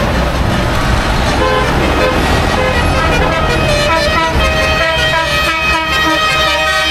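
A noisy procession of vintage tractors, engines running, with horns tooting over and over, more often in the second half.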